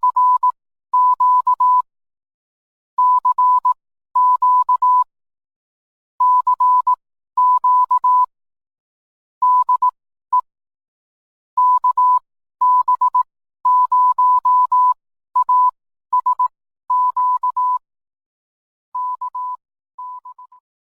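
Morse code sent as a steady tone of about 1 kHz, keyed in groups of short and long beeps separated by pauses, fading out over the last two groups.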